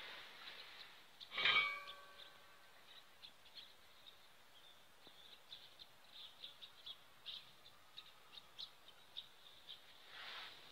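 A single metallic clink that rings briefly about a second and a half in, from steel compressor parts being handled, followed by faint scattered bird chirps.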